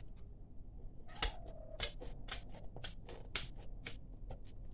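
Metal shears snipping through the tough, spiny skin of a hedgehog fish (porcupinefish), an irregular run of about a dozen sharp clicks.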